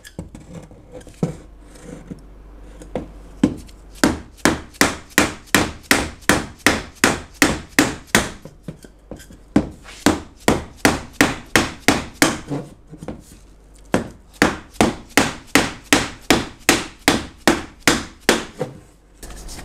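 Repeated hammer blows on the alternator, about two to three a second with a couple of short pauses, driving it into its mounting bracket until its bolts catch their threads.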